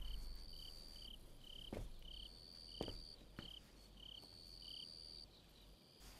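Crickets chirping at night: short high chirps repeating about every half second, with a longer, higher insect trill coming and going above them in three spells. A few faint taps sound in the middle, and the insects fall silent near the end.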